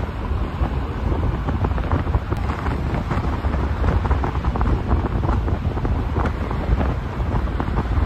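Wind buffeting a microphone held out of the window of a moving car: a steady, loud rushing noise, heaviest in the deep low end, with rapid flutter.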